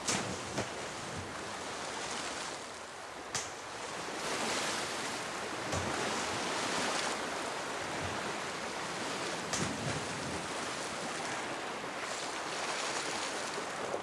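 Steady wash of sea surface water, broken by a few sharp splashes as mobula rays leap and slap back onto the water.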